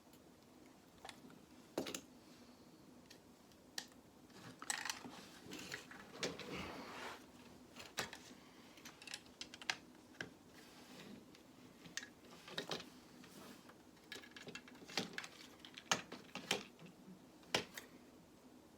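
Lego plastic pieces being handled and pulled apart: faint, irregular clicks and rattles, with a stretch of rustling a few seconds in.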